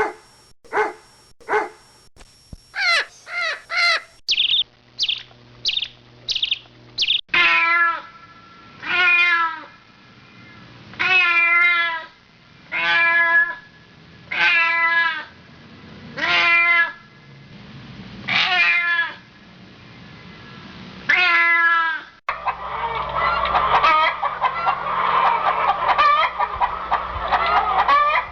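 Cats meowing in a string of separate clips: quick short meows at first, then a cat giving about nine long meows, one every second and a half. About 22 seconds in, it cuts abruptly to the dense, continuous calling of a flock of fowl.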